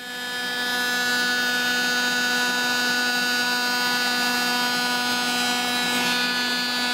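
Electric heat gun running, shrinking heat-shrink tubing over a crimped ring connector: it switches on and builds over about a second into a steady blowing rush with a whining motor hum.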